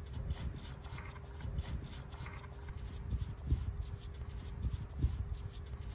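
Faint rubbing and scraping of a gloved hand working inside a truck wheel hub during a wheel seal job, over a low rumble with dull thumps about every one and a half seconds and a faint steady hum.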